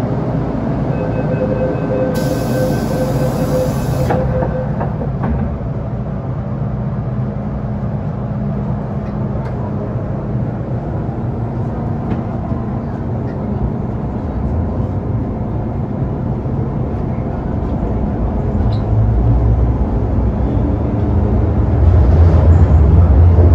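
Interior running noise of an MTR Metro-Cammell M-Train electric multiple unit under way: a steady rumble and rush from the car, with a low hum from the train growing louder near the end.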